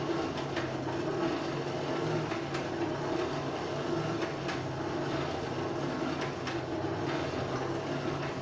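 A steady mechanical drone with a low hum, with a few faint clicks and taps over it.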